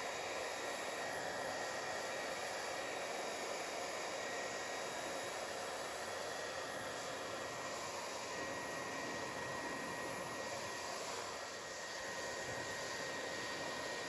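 Hair dryer blowing steadily with a faint high whine, aimed at a refrigerator door's rubber gasket to warm it so the seal reshapes and the door closes completely.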